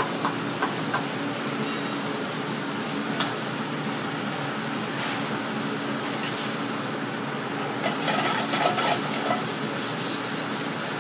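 Pieces of meat frying in hot fat in a stainless steel sauté pan over a gas flame: a steady sizzle that grows louder about eight seconds in.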